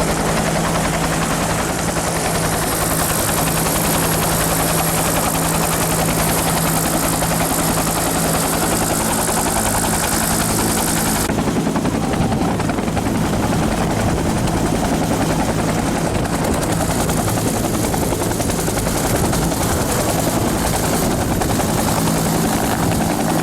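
Helicopter running close by, a steady engine tone under a continuous rapid rotor beat. About eleven seconds in, the hissing top end drops away suddenly and the low rotor sound carries on.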